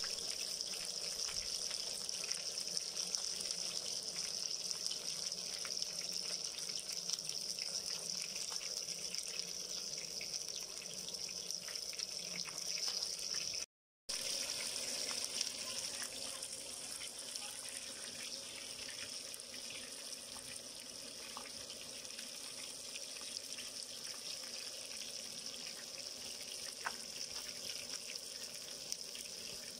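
Whole tilapia shallow-frying in hot oil: a steady sizzle with fine crackling, briefly cut off about halfway through.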